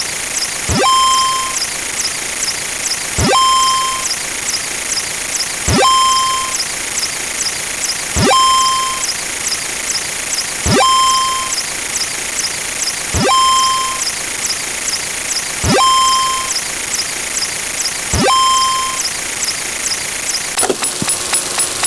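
Electronic sound effects repeating about every two and a half seconds: each starts with a quick rising sweep and ends in a half-second beep, over a steady hiss. Near the end the pattern switches to a rapid run of clicks with a lower steady tone.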